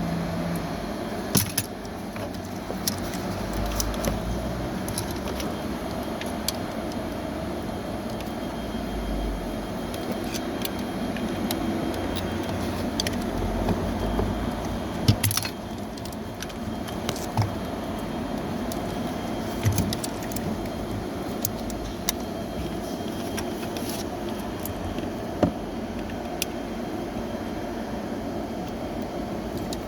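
Scattered sharp clicks and knocks of hands and tools working on plastic trim and a switch assembly, over a steady background hum.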